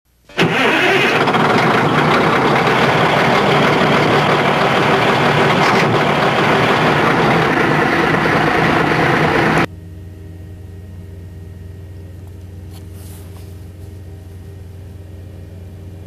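A loud engine sound starts abruptly just under half a second in and cuts off suddenly near ten seconds. After it, the steady low hum of the asphalt paving machinery's engine running at idle.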